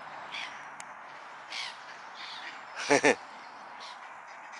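A flock of birds calling, with short high calls scattered throughout and one loud, harsh call about three seconds in.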